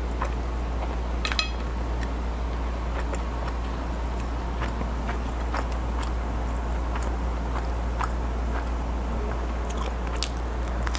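A person chewing and biting flatbread, with small mouth clicks and crunches, over a steady low hum. There is a short ringing clink about a second in.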